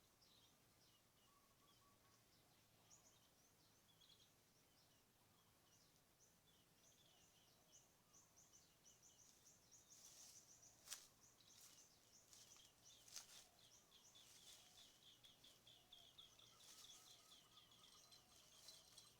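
Faint outdoor ambience of small birds chirping: scattered short high calls that get busier about halfway, becoming a fast run of repeated notes. Two sharp clicks stand out near the middle.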